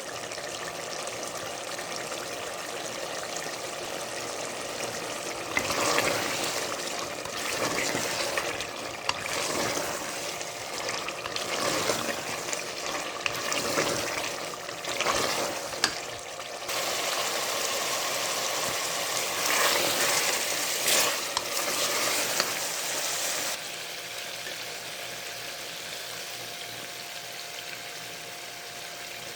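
Chicken karahi with tomatoes sizzling in the pan, a steady hiss. From about six seconds in until about twenty-three seconds in, louder bouts of stirring and scraping come and go.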